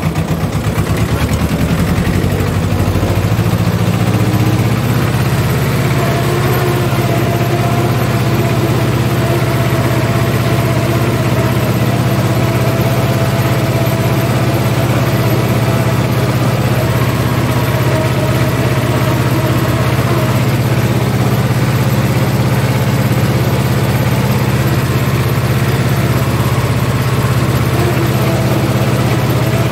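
Ursus C-330 tractor's two-cylinder diesel engine, heard from inside the cab, running at raised revs in second gear while driving the manure spreader's beaters through the PTO. The engine note climbs over the first few seconds, then holds steady.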